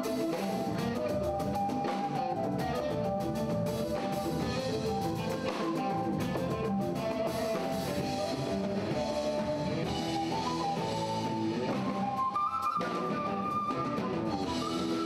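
A live rock band playing: electric guitars, bass, drum kit and hand drums, with a melody of held notes over the top.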